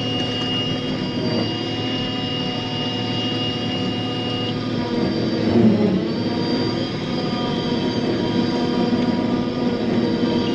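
A forage harvester and its engine run steadily under load. A high-temperature warning alarm sounds a steady high tone for the first four seconds or so, stops, and comes back near the end. The owner takes the alarm for a faulty temperature sensor rather than truly hot oil.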